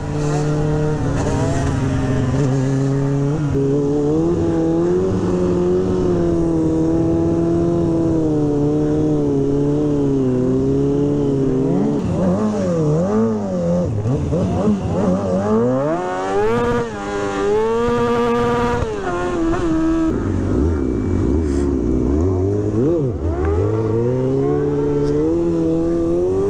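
Motorcycle engines running and revving, their pitch holding steady at times and repeatedly rising and falling as the throttle is worked.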